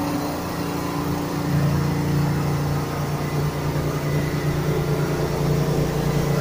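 Engine of a straw-bedding machine (straw blower) running steadily as it spreads straw.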